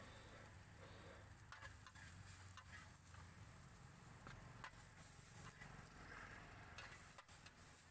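Faint, irregular clicks and taps of metal tongs against a large flat steel pan as fried noodles are tossed and portioned, over a steady low hum.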